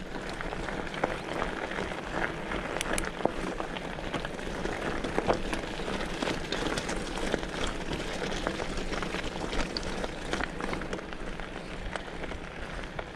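Mountain bike tyres crunching over loose gravel and stones, with many small clicks and knocks as the bike rattles over the rough track.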